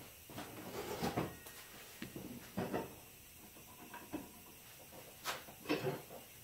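Light knocks and clicks, a few scattered ones, as hands handle a scooter's front wheel and axle area.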